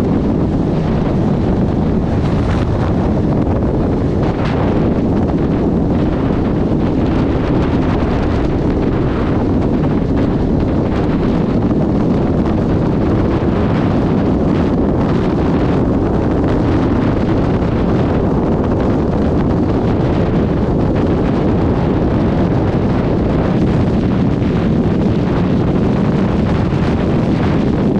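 Loud, steady wind rush buffeting the microphone of a Suzuki GSX1300R Hayabusa motorcycle at motorway speed.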